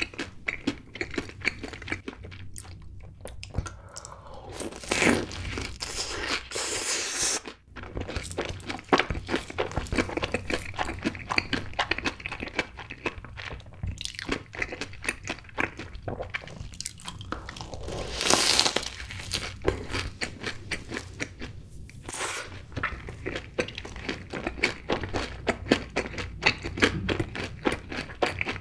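Close-miked crunching and chewing of a Cheetos-crusted corn dog, its crushed-Cheetos coating crackling in the mouth. A few louder crunches stand out among steady chewing.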